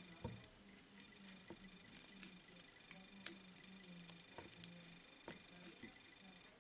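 Near silence with faint, scattered small clicks and ticks as a bobbin holder, thread and the fly on the hook are handled at a fly-tying vise. A faint low hum comes and goes.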